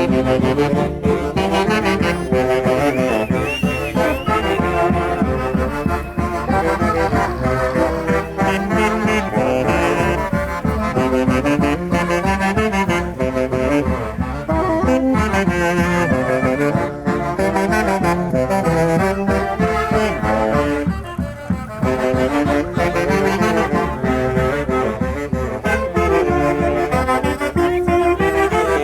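A live Peruvian orquesta típica, with saxophones and brass to the fore, playing Santiago festival music to a steady beat. A brief wavering high note rises above the band about three seconds in.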